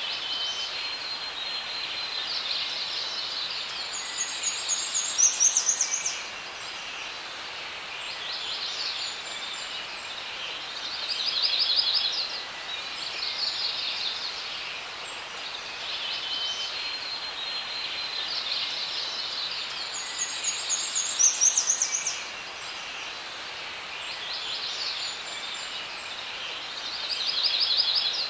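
Forest ambience of several songbirds singing chirps and quick trills over a steady background hiss. The same sequence of songs comes round again about halfway through, as in a looped recording.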